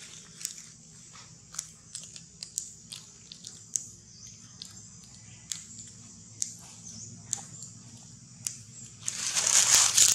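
Scattered sharp clicks and crackles over a faint steady high-pitched hiss, with a louder rustling noise swelling for about a second near the end.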